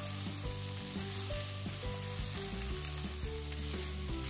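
Shredded chicken and onion sizzling steadily in a hot frying pan while being stirred and scraped with a silicone spatula.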